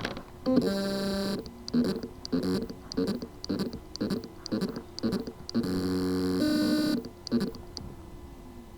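WD Black WD4005FZBX hard drive's spindle motor trying to spin up. A whine comes first, then short pulses about twice a second, then a longer steady whine, and the sound fades near the end. The motor spins but cannot reach full speed because of loose motor contacts on the PCB.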